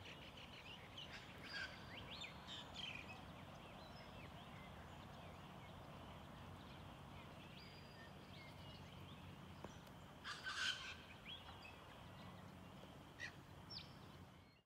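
Faint outdoor ambience with birds calling: scattered short chirps and calls over a quiet background, with a louder cluster of calls about ten seconds in.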